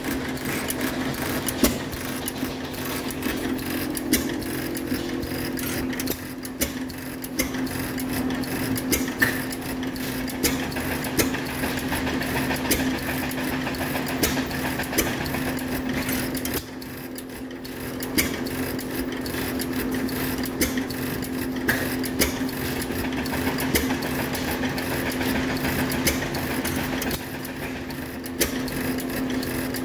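Antique hit-and-miss stationary gas engines running: a clatter of sharp, irregular clicks and pops over a steady hum.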